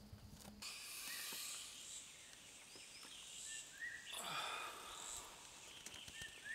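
Faint forest ambience: a steady high insect hiss with short bird chirps. A brief falling sound, the loudest moment, comes about four seconds in. In the first half second, a few footsteps on dry leaves.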